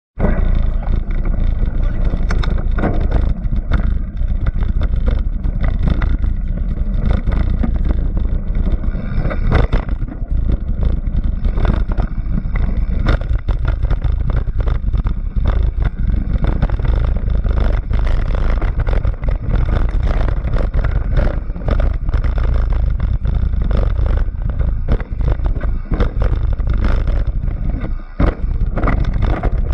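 Vehicle on the move, with a steady heavy rumble and frequent jolts and knocks, and wind buffeting the microphone.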